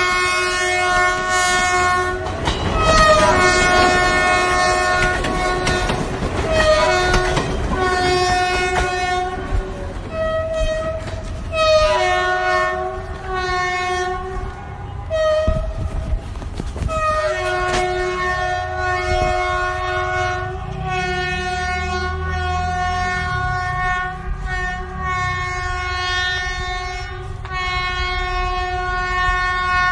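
Train horn sounding long, repeated multi-tone blasts with short breaks between them, the chord shifting in pitch from blast to blast, over the low rumble and clatter of a moving train.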